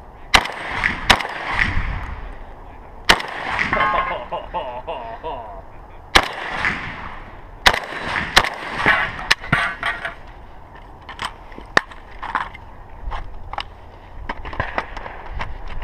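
Gunshots fired one at a time at uneven intervals, sometimes under a second apart and sometimes several seconds apart, as a competitor shoots a stage of fire.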